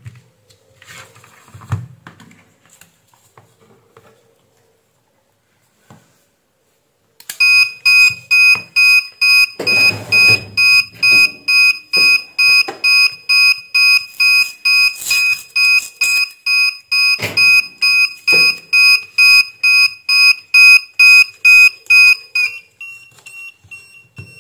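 XM-18 incubator controller's alarm buzzer beeping loudly and fast, about three to four high-pitched beeps a second, starting about seven seconds in. Near the end the beeping drops to a much quieter, muffled beep. Before it there are a few light clicks of wire clips being handled.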